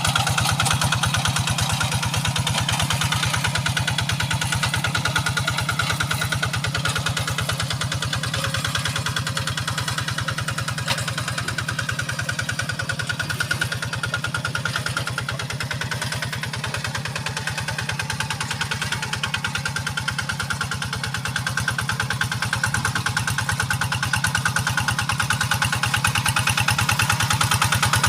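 Kubota RD85 single-cylinder diesel engine running steadily, with rapid, even firing pulses, dipping slightly in loudness midway and picking up again near the end.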